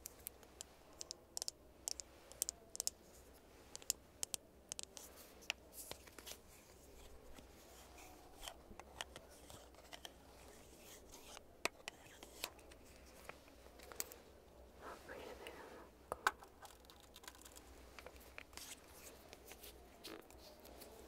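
Plastic Merzy lipstick cases handled close to the microphone: a run of sharp clicks and taps as their magnetic caps snap off and on, thickest in the first few seconds and again about two-thirds of the way through.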